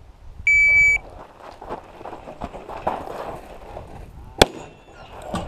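Shot-timer start beep, one steady high tone about half a second long, then scuffling as the shooter moves. About four seconds in, one sharp, loud report of a Les Baer 1911 firing .45 ACP, and a second, softer crack right at the end.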